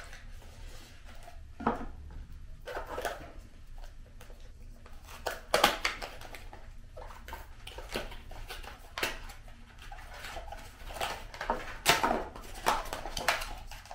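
A mask package being opened and its contents handled: a run of rustles, clicks and light knocks.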